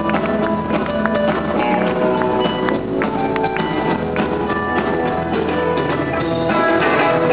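A live band playing music, with an even, steady loudness throughout.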